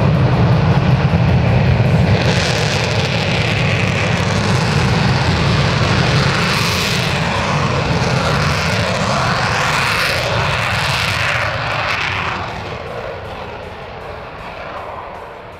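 Twin J79 turbojets of a JASDF F-4 Phantom II running at takeoff power on the takeoff roll: a loud, dense jet roar with whooshing sweeps as the aircraft passes, fading away over the last few seconds as it climbs out.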